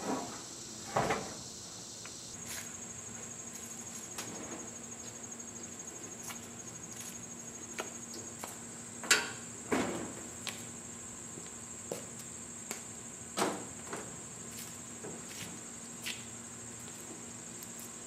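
Insects trilling steadily at a high pitch, a second pulsing trill joining a couple of seconds in, with scattered knocks and clunks, the loudest about nine seconds in, from a man handling gear and the metal rear doors of a box van.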